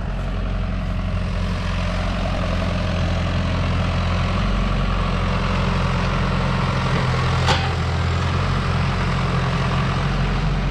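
Tractor engine running steadily, heard from inside the cab, with one sharp click about seven and a half seconds in.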